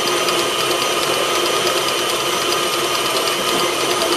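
KitchenAid tilt-head stand mixer running at high speed, its flat beater churning ground beef and crushed crackers in the steel bowl: a steady motor whine with a faint regular ticking.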